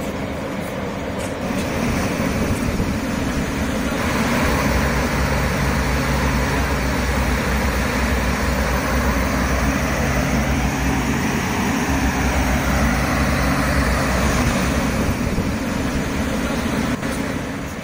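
Large Watergen atmospheric water generator running: a steady rush of air with a low hum, louder from about four seconds in and easing off near the end.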